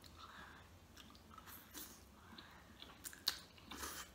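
Close-up chewing of a mouthful of prawn and creamy pasta: faint wet mouth clicks and smacks, with a couple of sharper ones a little past three seconds.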